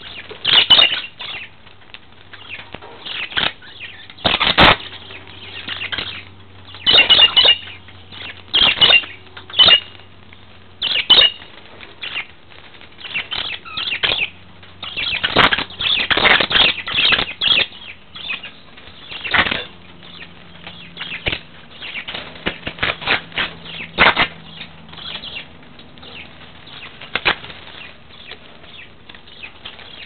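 Budgerigars moving about a wire cage: irregular bursts of wing fluttering and scuffling, with short high chirps mixed in.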